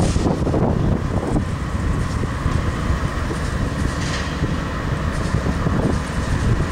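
GE AC4400CW diesel-electric locomotive standing and running, its 16-cylinder diesel engine giving a steady low rumble with a steady whine over it.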